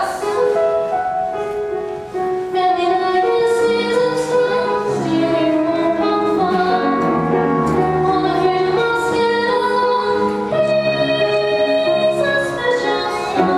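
Young cast singing a musical-theatre song together, several voices holding long notes that change pitch every second or so.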